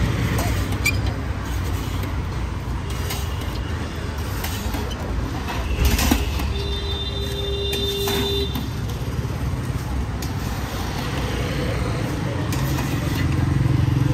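Steady rumble of road traffic beside a street food stall, with a few short metallic clicks from a scoop and sieve working in a roasting wok. A single steady tone sounds for about two seconds near the middle, just after a louder knock.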